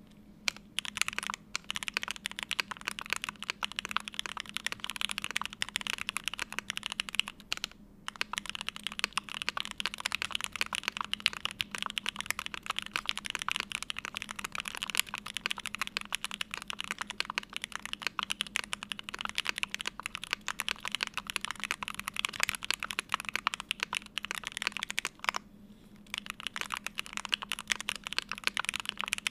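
Continuous fast typing on a Vega custom mechanical keyboard with an aluminium plate, stock Gateron Oil King linear switches, GMK keycaps and full foam. The typing breaks off briefly about 8 seconds in and again for about a second near 25 seconds.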